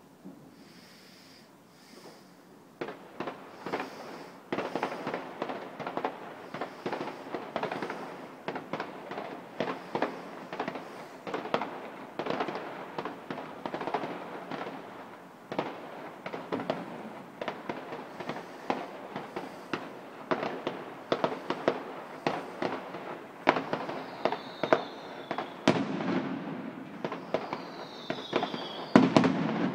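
Fireworks display going off at a distance: after about three seconds of quiet, a rapid, continuous run of bangs and crackles, with a few gliding whistles and some louder booms near the end.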